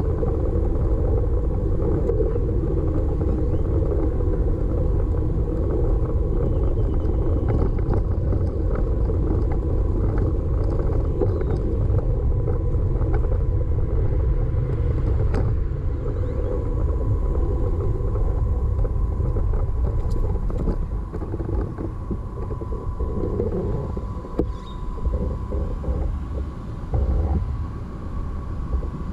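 Wind rumbling on the microphone of a camera riding on a moving bicycle, a dense, steady low rumble that drops and turns uneven in the last several seconds.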